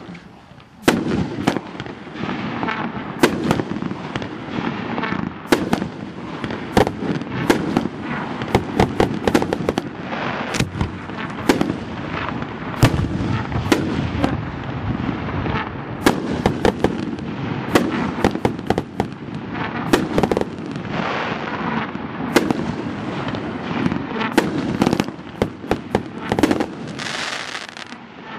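DM5250 Star Charger consumer firework going off: a continuous dense crackle and hiss with frequent sharp bangs, often several in quick succession, for the whole of the firing.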